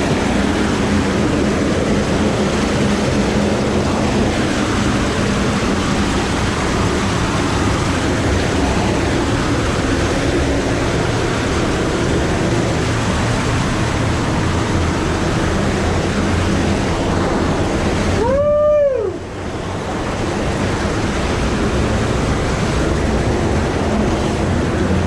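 Loud, steady rush of a spring-fed creek running through a cave. About 18 seconds in, a short pitched sound rises and falls once, and the rushing drops briefly just after it.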